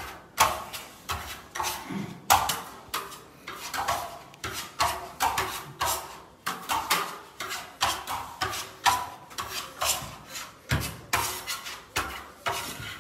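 Steel spatulas scraping over a Venetian lime-plaster wall in quick repeated strokes, about two or three a second: the plaster being polished to a sheen under pressure.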